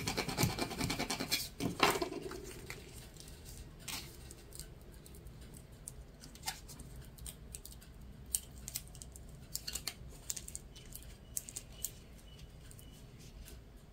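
Adhesive vinyl transfer tape and its backing paper being handled and peeled apart. Rustling and scratching for the first couple of seconds with a sharper crackle near the end of it, then scattered faint crackles and ticks.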